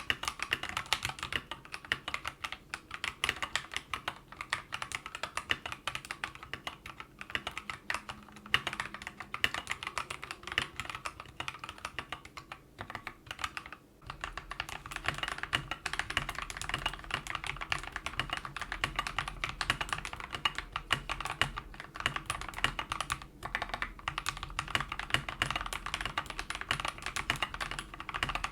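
Steady typing on a mechanical keyboard fitted with Akko CS Jelly White linear switches. The switches are stock at first; after a brief pause about halfway, the typing goes on with lubed switches.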